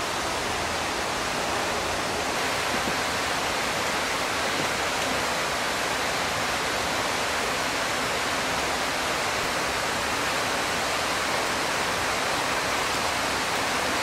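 Steady, even sizzling hiss from prawns grilling on a wire mesh over hot charcoal, with no pops or crackles.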